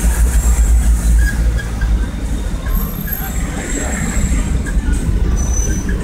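Low rumble of road traffic and engines heard from inside a car moving slowly in city traffic, heaviest in the first second or so. A few faint high-pitched squeals sit above it.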